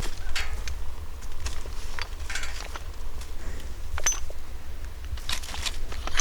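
Scattered light clicks, clinks and rustles of gear being handled, over a steady low rumble on the microphone.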